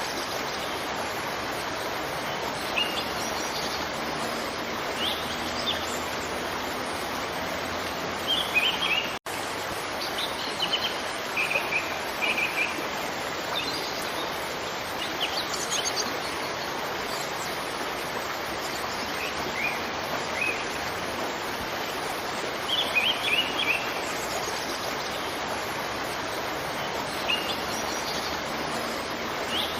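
Waterfall rushing steadily, with small birds chirping in short bursts of quick high notes here and there. The sound cuts out for an instant about nine seconds in.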